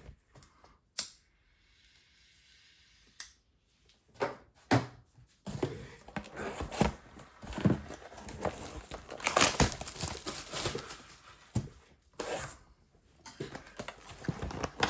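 Plastic wrapping on a sealed box of trading cards being torn off and crinkled. A few separate taps and clicks come first, then a long stretch of crackling, a short pause and another burst of crinkling.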